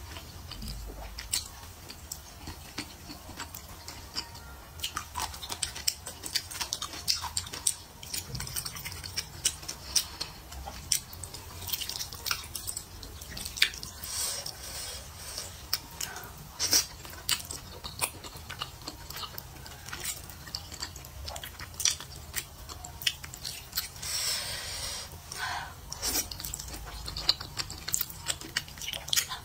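Close-miked slurping and chewing of thick rice noodles in a spicy sauce: wet smacks and many small clicks, with a longer slurp late on.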